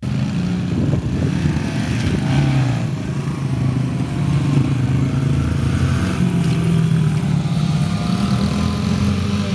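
Small dirt bike engines running and revving, several bikes at once, the engine pitch rising and falling as they ride around.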